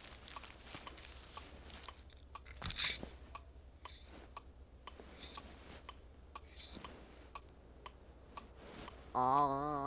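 Soft scratchy strokes of a nail file, a second or so apart, over a faint regular ticking. Near the end comes a short wavering tone.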